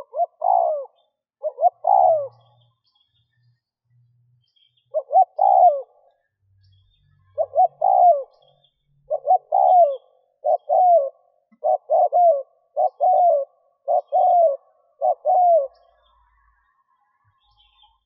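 Caged spotted dove cooing: a string of about ten phrases, each a short lead note followed by a longer coo that falls in pitch, with a pause of a few seconds after the second phrase. This is the call of a decoy bird used to draw wild spotted doves.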